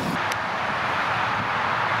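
Steady rushing noise with no distinct events, with one faint click about a third of a second in.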